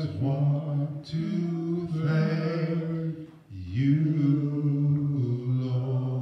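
A man singing slowly into a microphone: three long, drawn-out phrases of held notes, with short breaths about a second in and about three and a half seconds in.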